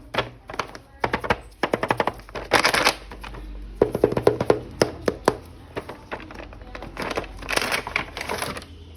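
Handling of an action figure and its plastic packaging: quick clicks and taps with several short bursts of crinkling. Background music plays underneath.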